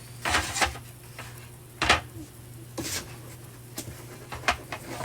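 Light handling noises: scattered clicks, taps and rubbing sounds, the sharpest about two seconds in, over a steady low hum.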